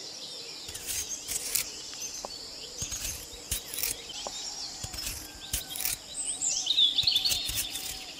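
Knife slicing and scraping through a whole lamb carcass in short strokes, with birds chirping throughout and a louder run of birdsong about seven seconds in.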